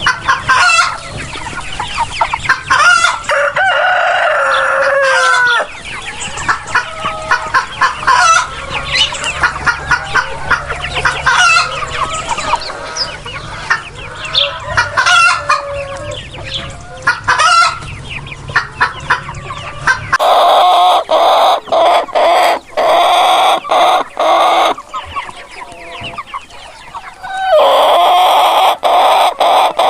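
Chickens clucking and calling, with a rooster crowing, one long call falling in pitch, about four seconds in. About two-thirds of the way through, the sound changes abruptly to louder, denser, continuous calling from a different group of birds.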